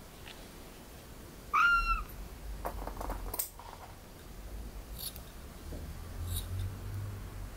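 British Longhair kitten giving one short, high meow about one and a half seconds in, while having the fur between its paw pads trimmed. A few faint snips of small grooming scissors follow later on.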